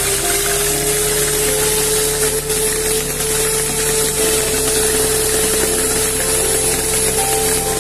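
A small electric motor running steadily, its whine rising slightly in pitch, over sustained background music whose chords change every few seconds.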